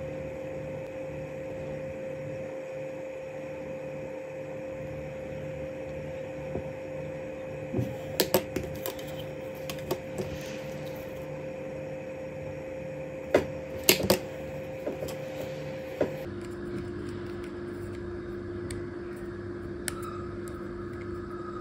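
A steady machine hum with a low pulsing, broken by two short clusters of sharp clicks and knocks; about three quarters of the way through the hum's tone drops and carries on lower.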